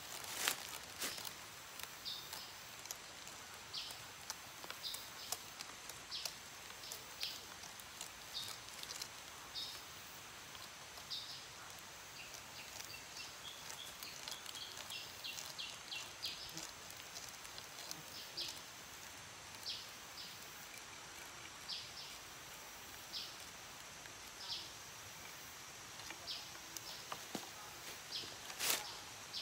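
Machete blade scraping along a thorny plant stem to strip off its thorns, in short repeated strokes every half second to a second. A sharp knock comes about half a second in and another near the end, over a faint steady high insect drone.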